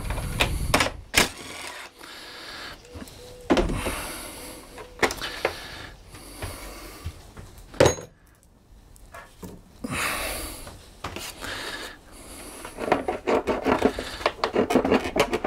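Workbench handling sounds: sharp knocks and clinks of a cordless impact driver and small metal parts being set down on the bench. Near the end, fast plastic rattling as the mower engine's plastic cover is worked loose.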